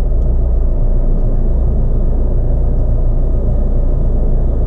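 Steady low rumble of a car's idling engine heard inside the cabin while the car stands still.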